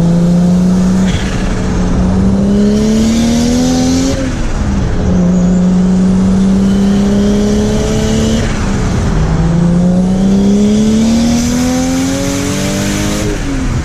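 Nissan RB25DET turbocharged straight-six revving hard, its note climbing in pitch and dropping back three times, about 4 and 9 seconds in and again near the end. The engine is running on a newly fitted standalone ECU with an electronic throttle.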